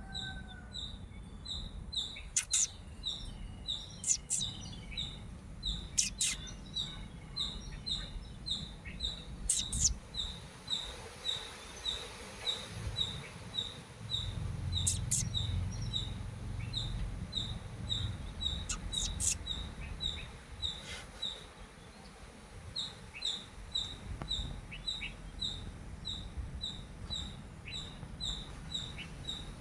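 Steady, evenly repeated high-pitched chirping, about two to three chirps a second, over a low background rumble, with a few sharp clicks now and then.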